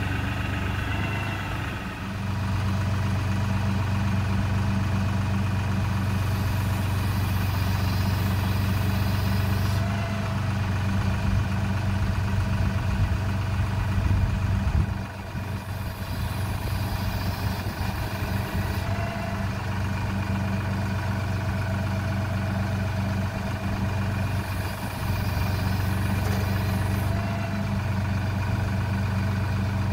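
LS compact tractor's diesel engine running steadily while its front loader handles a log. A higher hiss comes in three times, a few seconds each.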